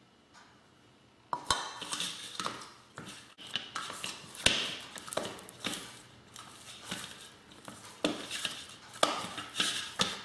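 Wheat-flour roti dough being kneaded by hand in a bowl: irregular knocks, slaps and scrapes against the bowl, starting about a second in.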